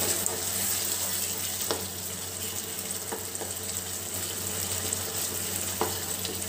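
Thick tomato-onion masala sizzling and bubbling on a low flame in a non-stick wok as a wooden spatula stirs it, with a few light taps of the spatula against the pan.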